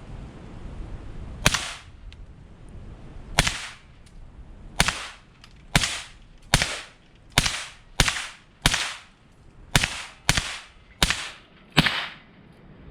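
AR-style rifle firing 5.56 mm 55-grain FMJ rounds: twelve shots, the first few about a second or two apart, then coming quicker, each crack followed by a short echo.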